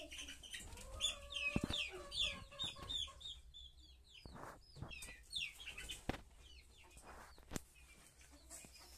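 Birds calling in a quick run of short, high chirps that come thick for the first few seconds and then thin out, with a few sharp knocks among them.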